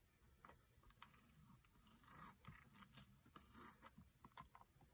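Faint handling sounds: small taps and soft rubbing as hands press on the clear lid of a stamping platform to stamp onto card.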